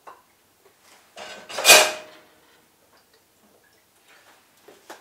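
Peanut oil being poured into a steel frying pan: one short rushing sound about a second in that swells and dies away within a second, with faint small ticks around it.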